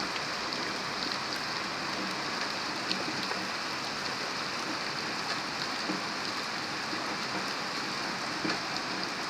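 Steady light rain falling and pattering on surfaces, with a few separate drops ticking.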